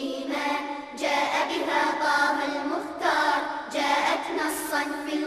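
Children's choir singing an Arabic nasheed in sung phrases, with brief breaks about a second in and again near four seconds.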